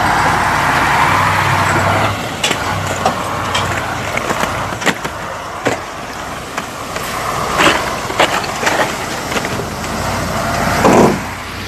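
KamAZ truck's engine running as it pushes through deep snow, with a loud rushing noise in the first two seconds, then a run of sharp crunches and cracks.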